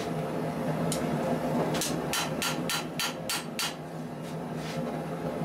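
Hand hammer striking a red-hot steel knife blade on an anvil during forging: a single blow about a second in, then a quick run of about seven strikes, followed by a few lighter ones.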